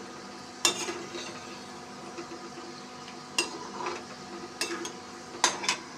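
Sweet dough balls (gulgule) deep-frying in hot oil in a metal kadhai, a steady sizzle, while a perforated metal slotted spoon stirs them and scrapes and clinks against the pan several times.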